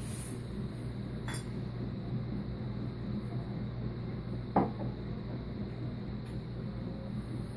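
Kitchen items being handled at a counter and cupboard: a faint click a little over a second in, then one sharp knock of something set down hard about four and a half seconds in, over a steady low room hum.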